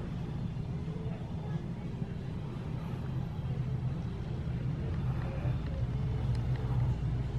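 Steady low hum and rumble of background room tone, with no distinct events.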